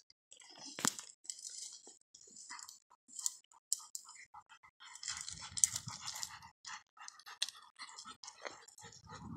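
Mastiffs chewing and tearing at grass: irregular crisp crunching and crackling. A low rushing noise comes in near the end.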